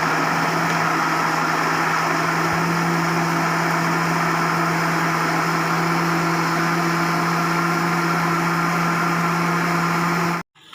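A motor running steadily with a constant low hum, cutting off abruptly near the end.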